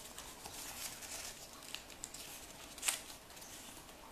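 Sheet of paper rustling and crinkling as it is folded and creased by hand, with one sharper crackle about three seconds in.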